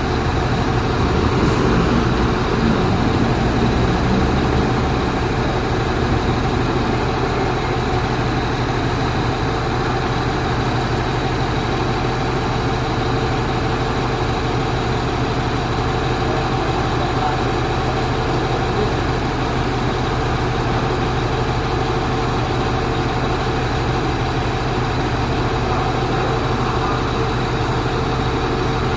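Four-axle truck's engine running steadily, an even hum holding the same pitch throughout, a little louder in the first few seconds.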